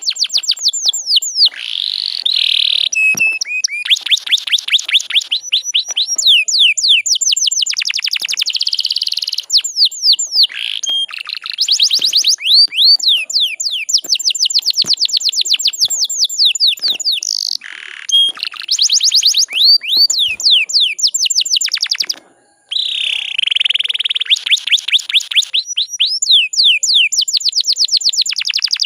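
Domestic canary singing in long, fast trills: runs of high, quickly repeated falling notes, many a second, broken by short pauses and a brief break about two-thirds of the way through. This is a lure recording used to stir other canaries into singing.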